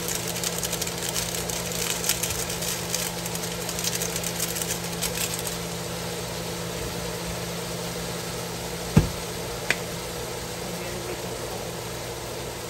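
Horse conch meat and vegetables sizzling in a frying pan over a steady hum; the crackling fades out about halfway through. Two sharp knocks come a little under a second apart near three-quarters of the way in.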